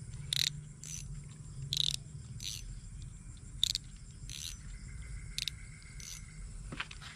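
Steady high insect drone with about eight short scratchy chirps, a second or less apart, over a low rumble.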